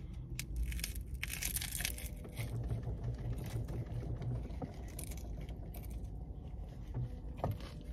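A crunchy hard-shell taco being bitten into and chewed, the shell crackling and crunching, thickest in the first couple of seconds.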